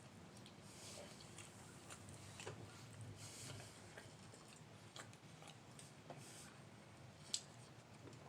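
Near silence with faint eating sounds: scattered soft clicks and small mouth and food noises, one slightly sharper click about seven seconds in.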